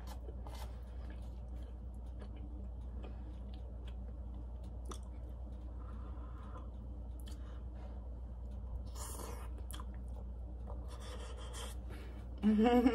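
A person chewing a mouthful of soft cooked food, with a few faint clicks and rustles, over a steady low hum.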